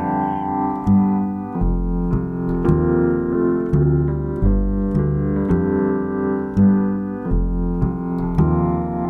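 Background music: an instrumental piece led by piano or keyboard, with sustained chords and a bass line that changes note about every half second.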